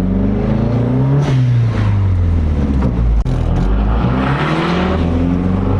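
Car engine running under load, its pitch falling from about a second in and then climbing again over the second half as it revs.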